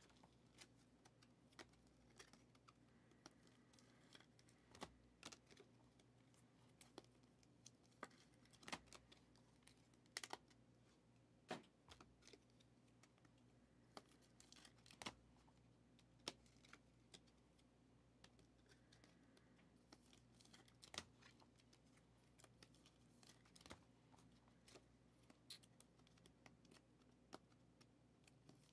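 Faint, irregular clicks, ticks and plastic rustles of trading cards being handled and slid into clear plastic sleeves.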